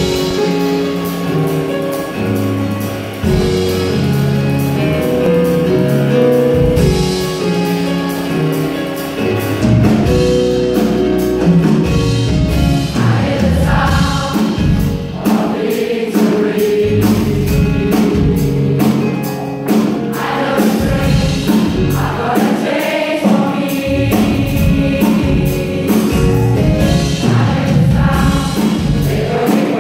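Large gospel choir singing a gospel song with a live band of drums, bass guitar and keyboards. It opens on held chords, and the drum beat comes in strongly about ten seconds in.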